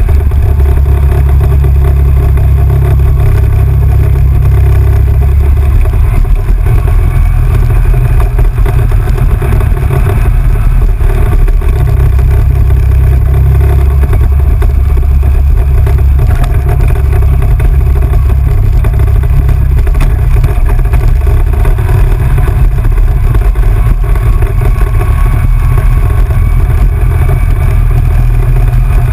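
ATV engine running steadily at riding speed, with a heavy low rumble.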